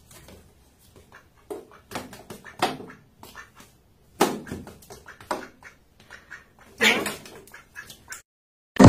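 A duck quacking again and again in short, raspy calls at irregular spacing, louder about four seconds in and again near seven seconds.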